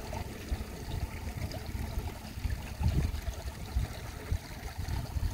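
Uneven low rumble of wind on the microphone, over a faint steady hiss of flowing pond water.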